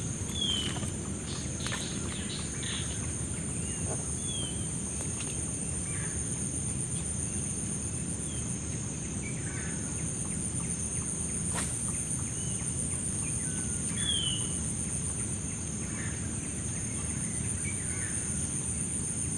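Lakeside dawn ambience: a steady, high-pitched drone of insects with a few short bird chirps scattered through it. There is one sharp click a little past the middle.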